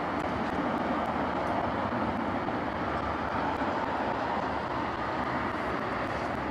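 Steady engine noise from a distant Airbus A321-131 and its two IAE V2500 turbofans as it taxis onto the runway, an even rumble without sudden changes.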